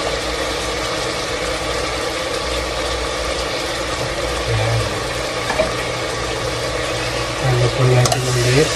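Pork sautéing with garlic and onion in hot oil in a pot: a steady sizzling hiss.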